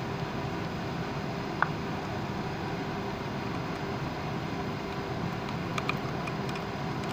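Steady background rumble, with a single sharp click about one and a half seconds in and a few small clicks near the end as a screwdriver works a terminal screw in a plastic three-phase industrial socket.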